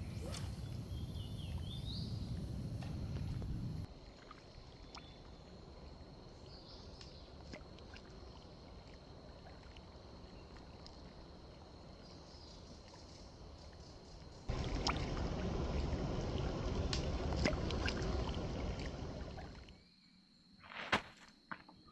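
Outdoor lakeside ambience: two stretches of loud rushing, rumbling noise, one at the start and one from about two-thirds of the way in, each stopping abruptly, with quieter ambience between them. A steady high whine runs under it, a few chirps come near the start, and a couple of sharp clicks come near the end.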